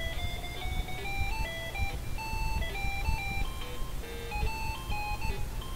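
A game's title-screen theme played as a single line of beeping square-wave notes from a PC's internal speaker, stepping quickly through a melody, with a steady low hum underneath.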